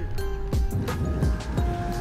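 Background music with a steady beat: deep kick-drum thumps that drop in pitch under held synth notes.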